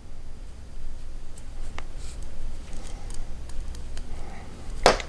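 Knitting needles clicking and tapping against each other as stitches are worked, with yarn rustling softly between them; a louder click comes near the end.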